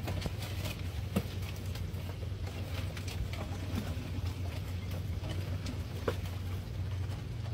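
Steady low hum of the boat's idling outboard motor, with scattered clicking and rustling of live crawfish shaken from a mesh trap onto a metal sorting table; two sharper clicks, about a second in and again near the end.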